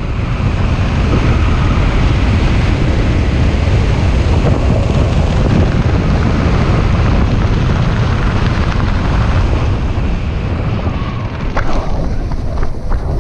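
Wind buffeting the microphone of a helmet-mounted camera during a parachute descent, a loud, steady rush that eases off near the end as the jumper comes in to land.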